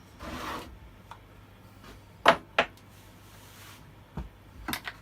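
Sharp knocks and clicks as an Echo CS3400 top-handle chainsaw is handled and put back together. The two loudest come about a third of a second apart a little past two seconds in, with a few weaker ones near the end and a short hiss at the start.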